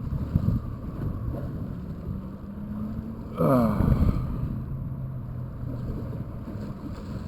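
A spinning rod cast, the line whirring off the Berkley Fusion reel's spool in a short, loud, falling whirr about three and a half seconds in. Wind buffets the microphone throughout, and a low steady hum drops in pitch at the moment of the cast.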